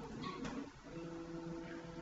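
Stepper motors of a small Arduino-based GRBL CNC router whining faintly at a steady pitch as the axes move during an automatic homing cycle. Under a second in the whine stops briefly and starts again at a slightly different steady pitch as the machine's motion changes.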